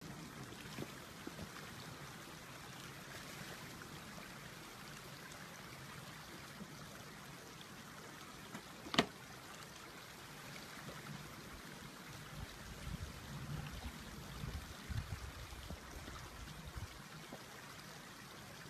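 Shallow creek flowing over snow-capped rocks, a steady rushing trickle. A single sharp click comes about halfway through, and low thuds and rumbles come in the later part.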